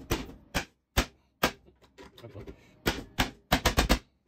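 Hammer blows on a hand impact screwdriver, each strike sharp and metallic, driving the bit into a seized door set screw to turn it loose. There are about ten strikes: four spaced out, a pause, then a quicker run of six near the end.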